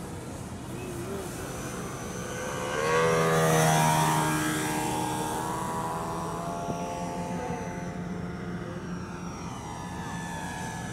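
Electric RC aerobatic plane's motor and propeller whining in flight, swelling into a close pass about three to four seconds in, after which its pitch falls gently.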